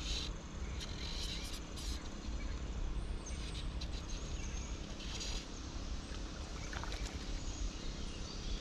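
Wind buffeting the microphone as a steady low rumble, with scattered light clicks and ticks, mostly in the first few seconds, while a hooked trout is played on a fly rod.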